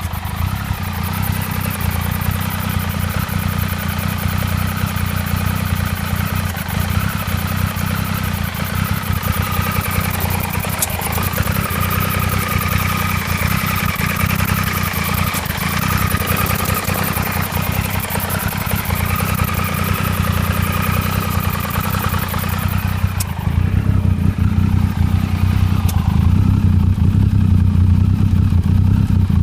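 Triumph 955i Sprint RS's three-cylinder engine running with an intermittent hiccup and valve noise that both began at the same time, a fault the owner cannot yet explain. About three-quarters of the way through, the sound changes suddenly: the higher whine drops away and the low engine note gets louder.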